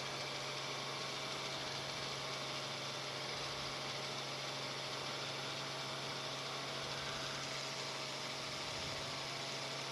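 Steady drone of a news helicopter's engine and rotors heard through the crew's headset intercom: a constant low hum with a faint steady whine and hiss.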